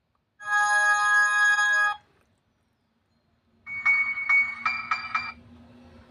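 Two short sound-effect clips played back one after the other: first a steady ringtone-like chord of held tones lasting about a second and a half, then, after a pause, a quick run of about five struck, ringing bell-like tones.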